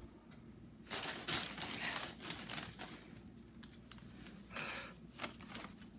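Irregular rustling and crinkling with small knocks, coming in uneven bursts: hand puppets being jostled about in a mock scuffle.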